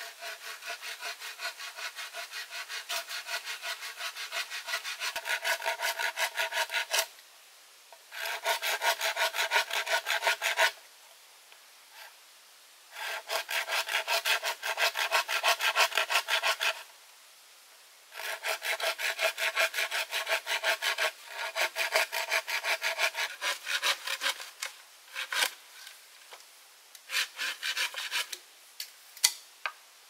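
Hand saw cutting through wood in quick back-and-forth strokes, several a second, with a faint ringing from the blade. It comes in four long bouts with short pauses between them, then a few scattered strokes near the end.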